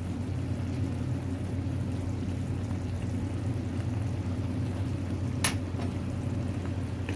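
Tomato masala gravy simmering in a non-stick pan while a steel spoon stirs it, over a steady low hum, with one sharp clink of the spoon against the pan about five and a half seconds in.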